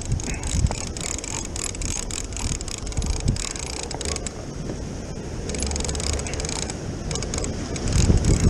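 Fishing reel being cranked, its gears giving a run of fine clicks, over breaking surf and wind on the microphone, which rumbles loudest near the end.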